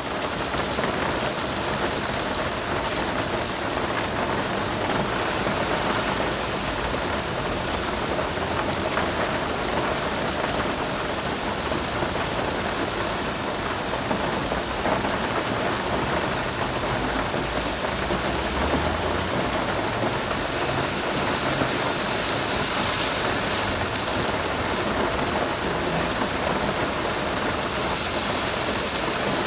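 Steady rain falling: a dense, even hiss of drops, unchanging throughout.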